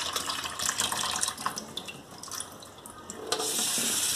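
Wet sliced Thai eggplant tipped from an aluminium colander into a steel bowl in a sink, with splashes, drips and light knocks of metal on metal. About three seconds in, the tap is turned on and water runs steadily into the bowl to rinse the salted slices.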